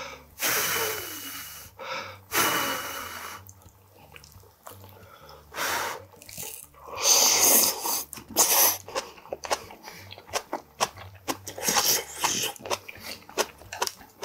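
A man blowing hard on hot food from a stew twice, then a loud slurp about seven seconds in, followed by quick wet chewing clicks.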